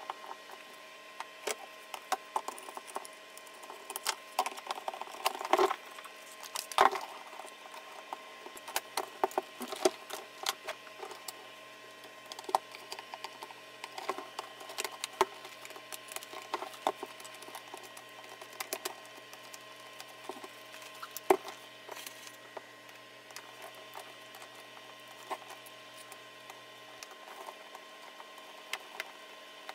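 Irregular small clicks, taps and scrapes of screws, a screwdriver and plastic casing parts being handled while a vintage video camera is reassembled, with a few sharper knocks, over a steady faint hum.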